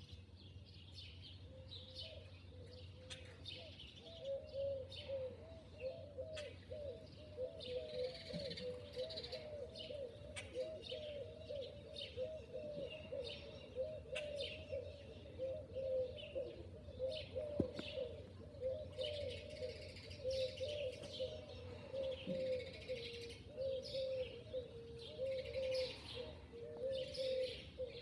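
Birds calling: a continuous run of low, wavering coos, with higher chirps scattered over it.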